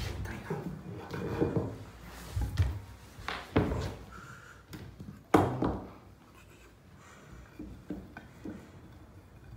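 Irregular knocks and clunks of bed-frame bars being handled and fitted together on a wooden floor, with rubbing and scraping between them. The loudest knock comes about halfway through, and the handling is quieter after that.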